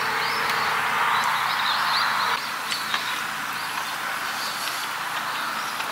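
Meat sizzling on a camping griddle pan over a gas burner, the hiss dropping away suddenly a little over two seconds in. Small birds chirp throughout.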